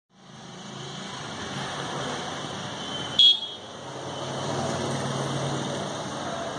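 Steady background noise with a low hum, broken about three seconds in by one short, loud, high-pitched beep, like a horn toot.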